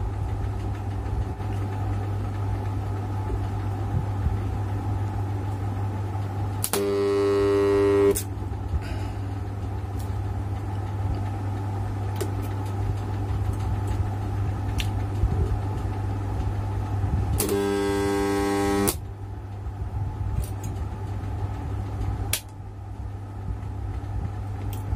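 Homemade spot welder's transformer humming steadily after switch-on, with two loud buzzes about a second and a half long, roughly ten seconds apart, as the electrodes close on a stainless blade and weld current flows. Scattered sharp clicks in between.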